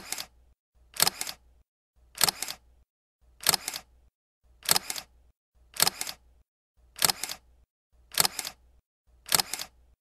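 Camera shutter sound effect: a quick double click repeated about nine times, roughly once a second.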